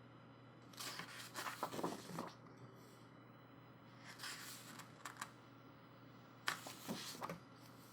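Pages of a photobook being turned by hand: three short paper rustles, about a second in, past the middle, and near the end.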